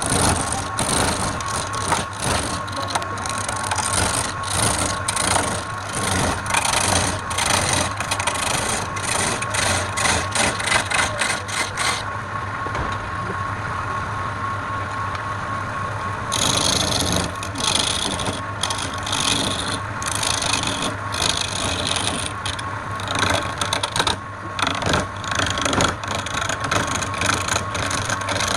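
Wood lathe running with a turning tool cutting into the spinning wood, a rapid run of scraping strokes over the steady motor hum. The cutting stops for about four seconds in the middle while the lathe keeps running, then starts again.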